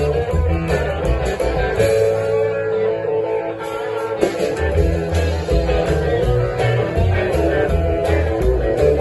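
Live band playing a blues number, led by guitar over a steady, rhythmic bass line; the bass drops out for about two seconds near the start, leaving the guitar on its own.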